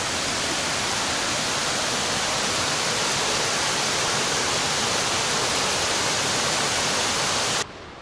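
Waterfall rushing, a steady even wash of falling water, cutting off abruptly near the end.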